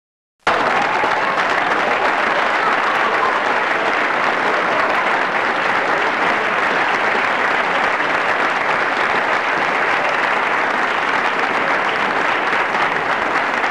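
Audience applause, steady and dense, starting suddenly about half a second in.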